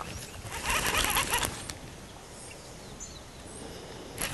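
Fishing reel whirring in two short bursts, about a second in and again near the end, as line runs on or off the spool. A few faint bird chirps sound between them.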